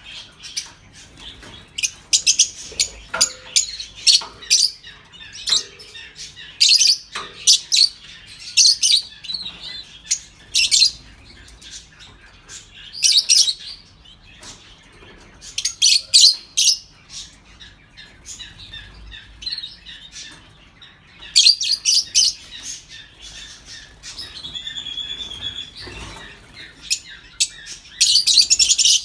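Masked lovebirds chattering in clusters of rapid, high chirps every second or two, with one short steady whistle near the end.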